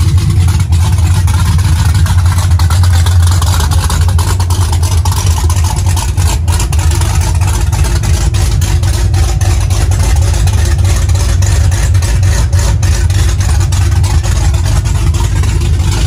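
Supercharged V8 of a Chevrolet Camaro ZL1, fitted with a big cam and straight-piped exhaust, idling loudly and steadily with an uneven, choppy lope.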